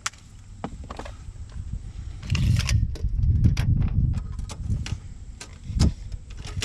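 Handling noise of hands working at a car door: scattered sharp clicks and taps with rustling, densest from about two to four and a half seconds in.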